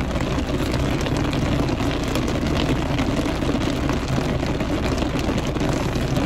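Heavy rain falling on a car's roof and windows, heard from inside the cabin as a steady, even patter.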